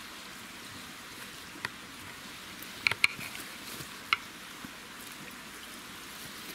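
Knife and fork clinking and scraping on an enamel camp plate while a steak is cut. There are a few sharp clicks, two close together about three seconds in and one near the middle, over a steady faint hiss.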